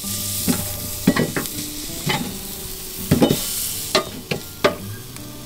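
Open wood fire crackling and hissing under a rabbit roasting on a rotisserie spit: a steady hiss with irregular sharp pops, the loudest few about three seconds in.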